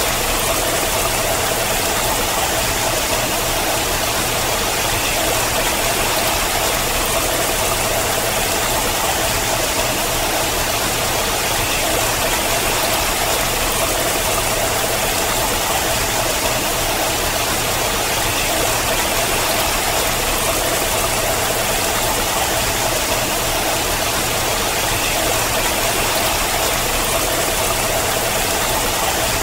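Water running down a steep rock face in a thin sheet, a steady unbroken rush.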